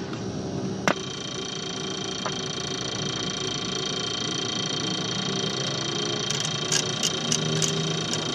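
Turboprop engine of a Cessna Silver Eagle 450 running steadily, heard inside the cabin as a constant high whine made of several steady tones. A sharp click comes about a second in, and a few short ticks near the end.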